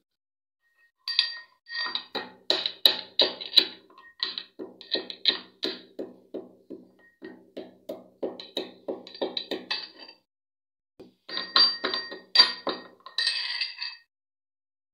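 Metal pestle pounding whole spice seeds in a metal mortar: a run of clinking strikes, about two to three a second, each with a short metallic ring. The strikes pause briefly about ten seconds in, then resume for a few more.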